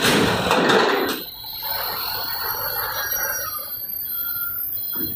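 A box truck drives past close by over a steel-grated ferry ramp, loudest in the first second and then fading. Behind it another truck's engine keeps running as it rolls down off the ship.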